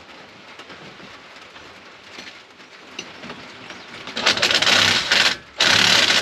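Impact wrench hammering in two loud bursts near the end, the first about a second long and the second shorter, as a bolt on bulldozer parts is run tight.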